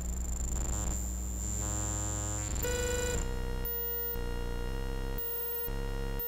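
Electronic synthesizer music: a low drone with a high steady whine, then from about two and a half seconds in, sustained tones that change pitch in steps about every half second.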